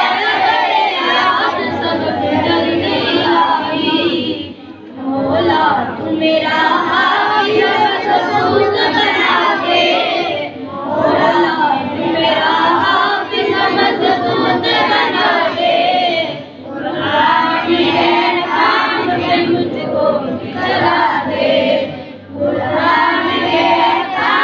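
A large group of children chanting supplications in unison, in repeated phrases of about five to six seconds, each followed by a short break for breath.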